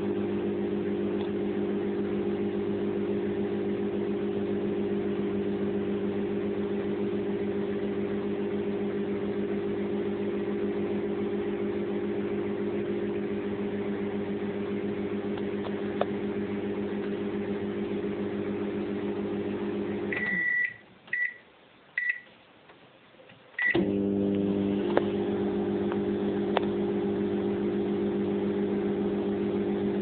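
Microwave oven running with a steady hum. About twenty seconds in it stops, three short beeps follow, and a few seconds later it starts humming again.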